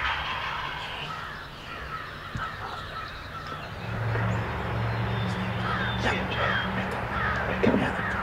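Crows cawing among dawn birdsong, with a steady low hum coming in about halfway through.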